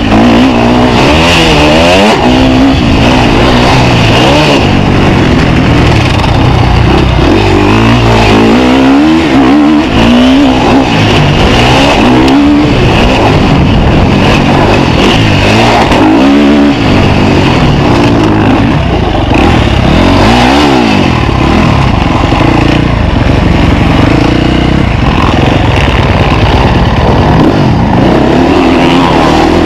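KTM 350 SX-F motocross bike's single-cylinder four-stroke engine, ridden hard: it revs up and drops back again and again as the rider twists the throttle and shifts through the gears, heard close up from a helmet camera.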